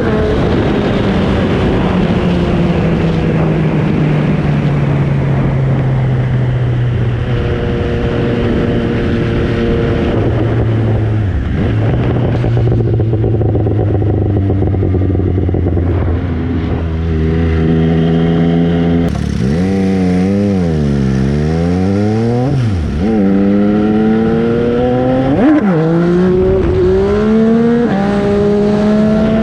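MV Agusta Brutale 800's three-cylinder engine on the move, the revs falling as it slows, then holding steady for a while. About two-thirds in the revs swoop down and back up, then climb in steps with brief drops between gear changes as it accelerates.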